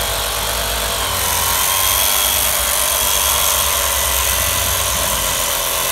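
Ryobi reciprocating saw with a bimetal blade running steadily while cutting into a rotten wooden window sill.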